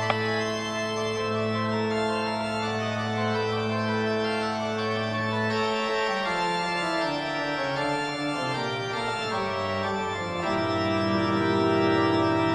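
Background music of slow, sustained organ-like chords that change every couple of seconds.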